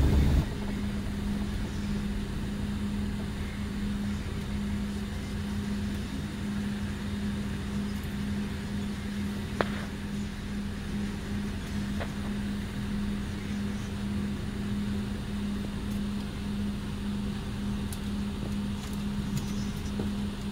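Mercedes-Benz O-500RSD coach's diesel engine running at a steady speed, a constant drone. It drops to a lower, even level about half a second in.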